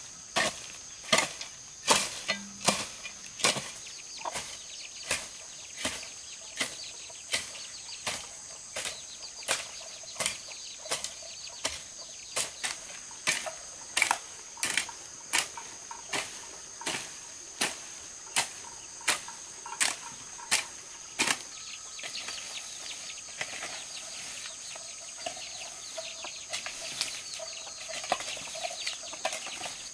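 Hoe blade chopping into weedy soil in a steady rhythm, a little over one stroke a second, for about twenty seconds; then the strokes give way to lighter, quicker scraping as the hoe is dragged through the cut weeds.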